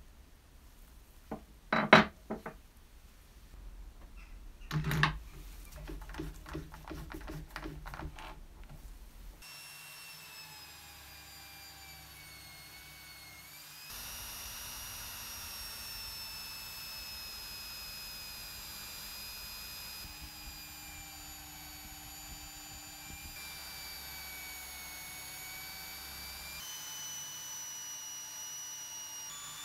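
Brass pieces of a corkscrew and bottle opener knocking and clicking against each other in gloved hands: two sharp knocks, then a quick run of light clicks. About ten seconds in, an electric drill starts spinning a buffing wheel, a steady whine with several tones drifting in pitch, louder from about fourteen seconds in as brass is polished against the wheel.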